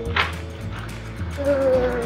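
Background music with a melody over a bass line that changes notes every half second or so.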